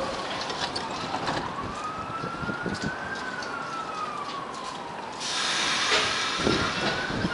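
A siren wails slowly up and down in pitch. About five seconds in an R46 subway train starts to pull out of the station, and a rush of train noise comes up under the siren.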